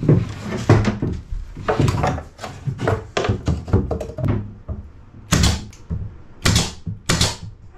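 Wooden strips knocking and scraping as they are handled and pressed into place, then three sharp shots from a pneumatic nailer driving pins into the wood near the end, about a second apart.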